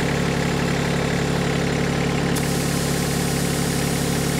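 An engine idling steadily, with a hiss of air coming in sharply about two and a half seconds in as an air chuck starts feeding a flat tractor tire to reseat its bead on the rim.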